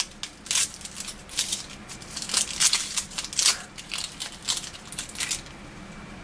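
Dry, papery skin of a yellow onion crackling and crinkling as it is peeled off by hand, in a string of short, irregular crackles that stop about a second before the end.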